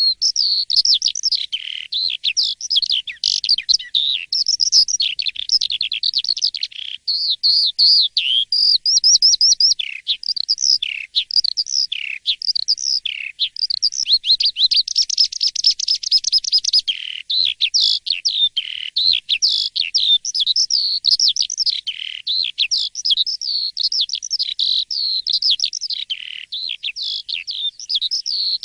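Jalak suren (pied starling) in full, loud song ("gacor"): a rapid, unbroken stream of varied whistles, chirps and trills.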